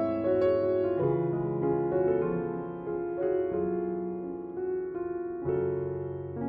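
Background piano music, with held notes and chords changing about every second.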